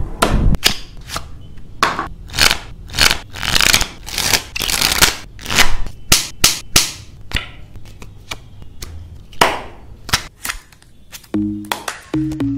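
A deck of playing cards being handled in flourishes and shuffles: an irregular run of short, crisp papery snaps and swishes, some sharp and some drawn out. Near the end a music track with low, evenly pitched notes comes in.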